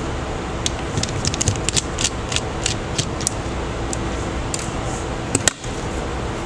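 A run of light, quick clicks and taps, small tools and parts being handled during a smartphone teardown, over a steady fan-like hum.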